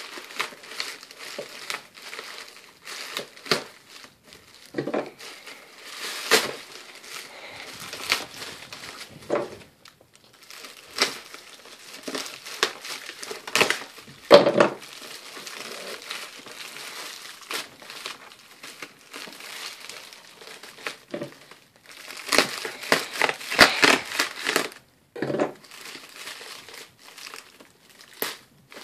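Plastic bubble-padded mailer being cut and pulled open by hand: irregular crinkling, rustling and tearing of the plastic, busiest in a long stretch a few seconds before the end.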